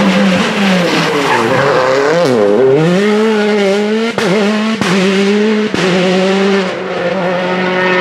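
Hyundai i20 WRC rally car's turbocharged 1.6-litre four-cylinder engine under hard driving as it passes through a bend. The revs drop steeply about two seconds in, then climb again in steps, with several sharp cracks from the exhaust around the gear changes, before the car pulls away.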